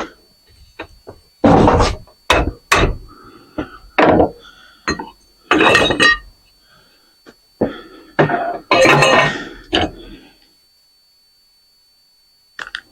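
Irregular hammer blows and clanks on a ceiling fan's metal motor parts, banging a part loose, about a dozen strikes with some ringing, stopping about ten seconds in.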